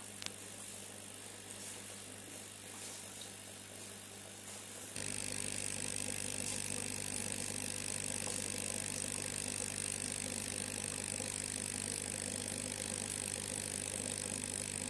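Aquarium filter pump humming steadily with a low buzz. About five seconds in it jumps louder with a steady hiss of running water and air, then cuts off abruptly near the end.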